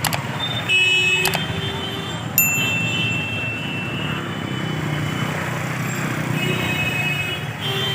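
Busy street traffic noise, with a few short high ringing tones and some sharp clicks, the loudest about two and a half seconds in.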